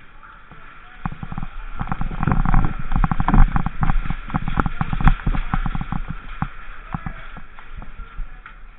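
A rapid, irregular run of sharp clicks and knocks, starting about a second in, densest and loudest between about two and five seconds, then thinning out.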